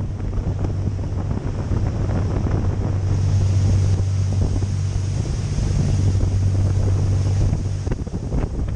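Boat engine running with a steady low hum, under wind buffeting the microphone and rushing water.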